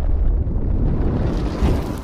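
A loud, low rumbling blast-like noise that dies away near the end.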